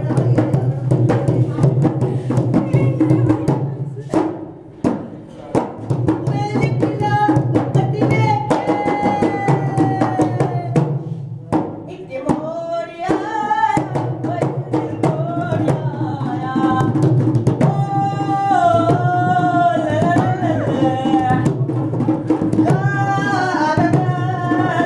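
Rajasthani folk music for a puppet dance: a hand drum plays a quick, steady rhythm over a low drone, and a gliding melody line comes in about seven seconds in. The drum drops out briefly around four to five seconds in.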